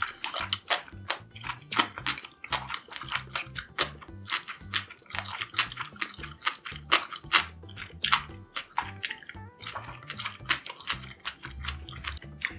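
Close-up crunching and chewing of crispy homemade tempura: rapid, irregular crackly crunches, several a second.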